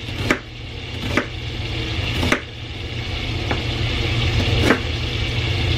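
Knife cutting an onion on a wooden cutting board: five sharp chops, about one a second, over a steady low hum and the sizzle of sliced sausage in a cast-iron skillet.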